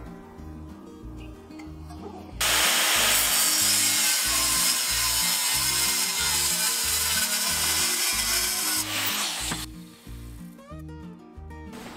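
Makita angle grinder with a cutting disc cutting through steel flat bar, starting a couple of seconds in and running for about seven seconds before stopping. Background music plays throughout.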